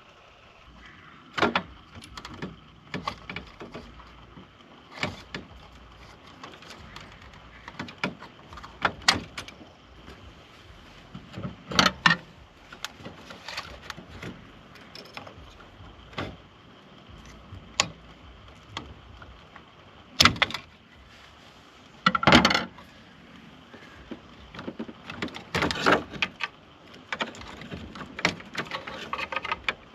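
Irregular clicks, knocks and rattles of hands working behind a car dashboard, unplugging the radio's wiring plugs and pulling the old radio out of its mounting bracket, with a few louder knocks scattered through.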